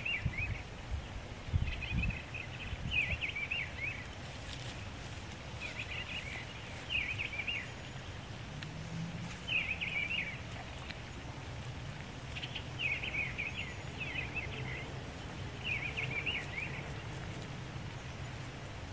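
Short, high trilled calls from a small animal, repeating every second or two over a steady low rumble of wind. Low bumps of wind on the microphone come in the first couple of seconds.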